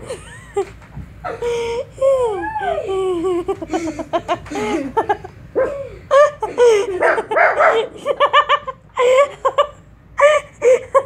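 People laughing hard, with sliding, wavering cries about two seconds in and quick fits of rhythmic laughter later on; a small dog vocalizes among the laughter.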